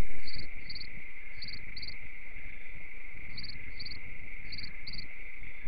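Music cuts off right at the start, leaving crickets chirping in short pairs of high chirps, four pairs spaced unevenly, over a steady high-pitched insect whine.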